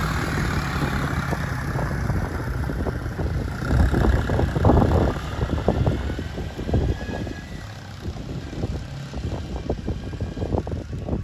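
Four-wheeler engine running with a steady low hum, louder around four to five seconds in.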